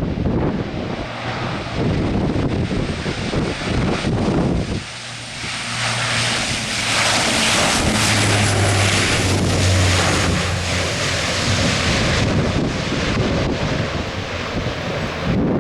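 Turboprop airliner at takeoff power, a steady propeller hum and engine hiss building from about five seconds in and loudest in the middle, then easing, over heavy wind buffeting the microphone.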